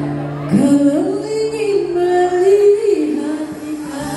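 A woman singing a slow, held melody over music played through the hall's PA system. Her voice enters with a rising glide about half a second in and holds long wavering notes until it fades about three seconds in, over a steady held bass note.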